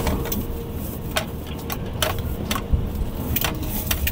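Irregular sharp clicks and rattles, about two a second, over a steady low rumble, as things knock and rattle while the ground shakes in an earthquake.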